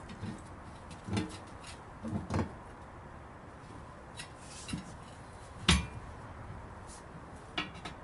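Irregular knocks and clunks of hand tools working a truck tire back onto its wheel, about six separate hits, the loudest a little past the middle.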